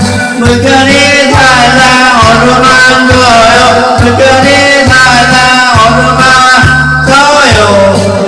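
Music of a Korean children's song: a gliding melody line over a repeating bass pattern, with a light shaker-like rattle.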